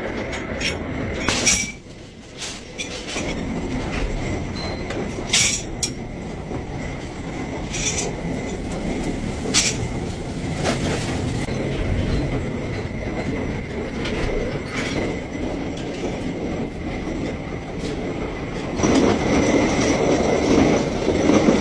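Machinery running with a steady rumble and a thin, steady whine, broken by scattered sharp clicks; it gets louder near the end.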